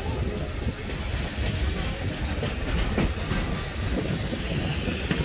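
Passenger train running on the track, heard from aboard a coach: a steady low rumble with the clickety-clack of the wheels over the rails.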